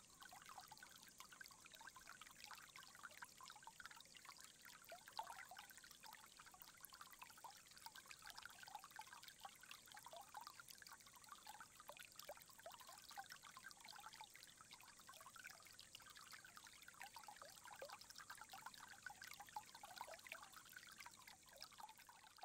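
Faint, steady trickle of water running into a stone tsukubai basin, with many small irregular splashes.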